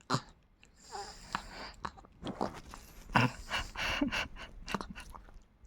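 A chihuahua chewing, in irregular short bursts of clicks and mouth noises.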